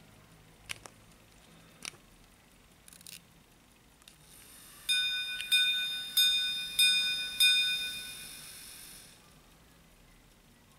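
Gold minute-repeater pocket watch striking the time on its gongs: about five clear, high ringing strikes roughly half a second apart, each dying away. A few small clicks come before them, and the watch is held in the hand rather than set on the wooden sounding board.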